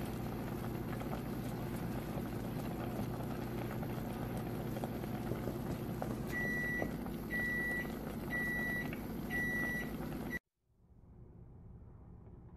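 Strawberry jam simmering in a pot, bubbling with small pops over a steady hum, as a wooden spatula stirs it. About six seconds in, a high electronic beep sounds four times, about once a second. The sound cuts off suddenly near the end, leaving only a faint hiss.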